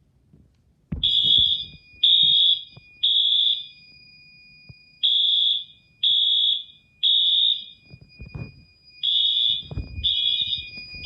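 Wheelock AS and NS fire alarm horns sounding together in the temporal-three pattern: three loud, high, buzzing blasts about a second apart, a pause, then the next three. They start about a second in, when the BG12 pull station is activated. The AS is set to high volume and drowns out the NS, which is on low, and a faint steady high tone runs under the blasts.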